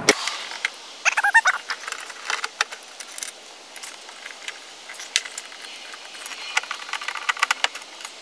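Phillips screwdriver turning out a tail-light mounting screw on a 2004 Chevy Tahoe: a run of small metallic clicks and ticks as the screw is backed out, with a brief squeak about a second in.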